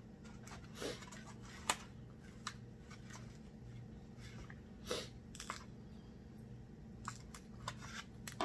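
Snow crab legs being snapped and pulled apart by hand, giving scattered small cracks and clicks of shell at uneven intervals, over a faint steady low hum.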